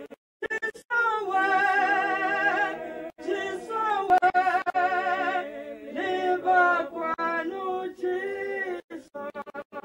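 A single voice singing unaccompanied, with long held notes and a wide vibrato. The sound cuts out briefly several times.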